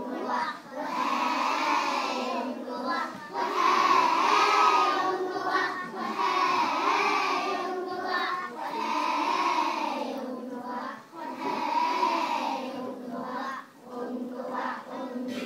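A class of four- and five-year-old children singing together, in sung phrases of about two seconds with short breaks between them.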